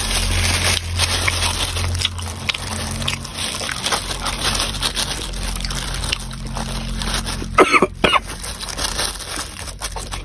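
Wet chewing and slurping of a mouthful of small meatballs in chili oil, a run of small squelching mouth clicks. Two sharp loud sounds come just before and at about eight seconds in.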